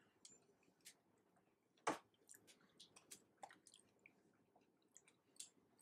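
Faint chewing of a tostada close to the table microphones: scattered small mouth and food clicks, with one sharper click about two seconds in.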